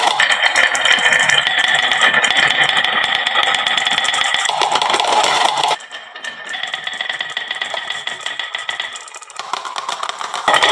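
Many marbles clattering down a wooden marble-run slope, a dense stream of rattling clicks. It falls away to a quieter trickle about six seconds in and swells again near the end.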